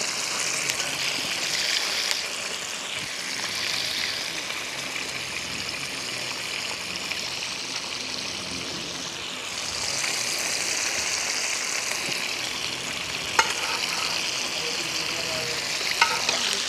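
Floured chicken pieces deep-frying in a pot of hot oil, a steady sizzle. A couple of sharp clicks come in the last few seconds.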